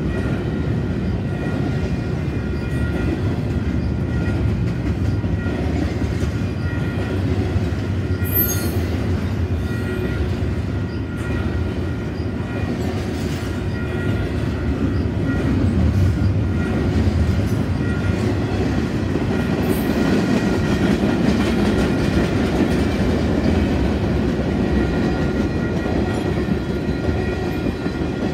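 Canadian Pacific freight train rolling past at trackside: the steady rumble and clatter of steel wheels on rail as double-stack container well cars and then tank cars go by, with faint steady high tones above the rumble.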